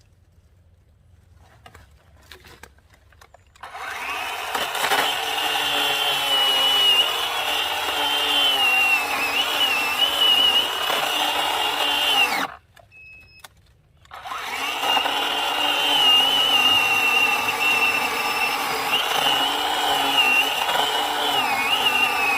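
A 20-volt brushless cordless chainsaw running, with a high whine that wavers as the chain cuts. It starts after a few quiet seconds with faint clicks, stops for a moment about two-thirds through, then runs again.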